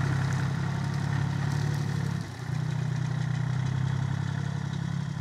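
Engine of a small L1-20 compact tractor running steadily while it drives a rear-mounted mower through grass, with a brief drop in the sound a little over two seconds in.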